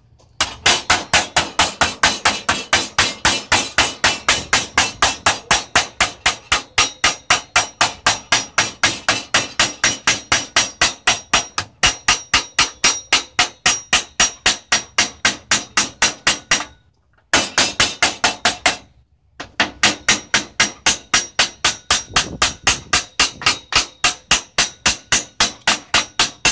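Hammer blows on sheet metal in a steady, rapid rhythm of about three strikes a second, folding the sheet over a piece of iron to make a bend. The hammering stops twice briefly about two-thirds of the way through, then resumes.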